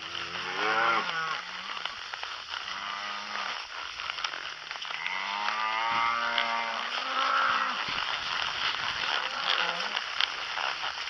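Cows mooing, several long calls that rise and fall in pitch, over a steady background hiss.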